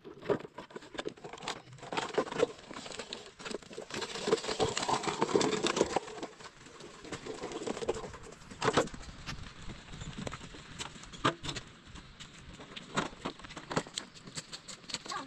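Scattered knocks and clatter of stones and a child's plastic toy wheelbarrow on stony ground, over a rustling haze.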